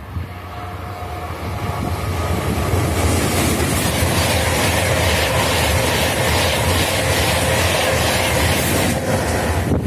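Frecciarossa high-speed train passing close by at speed: a rush of wheel and air noise that builds over the first few seconds, then holds steady with a rhythmic clatter from the wheels on the rails.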